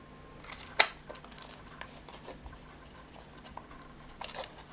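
Clear acrylic oscilloscope case parts handled and fitted together by hand: scattered small clicks and taps of plastic, with one sharp click a little under a second in.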